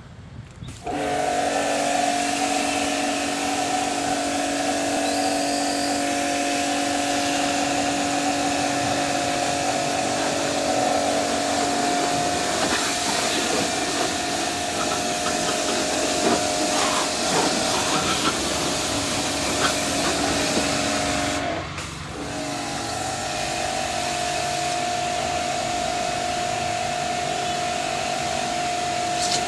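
Agrimate AM-PW165-PRO pressure washer running: a steady motor hum and pump whine over the hiss of the water jet. It starts about a second in, cuts out briefly a little after twenty seconds, and then runs on.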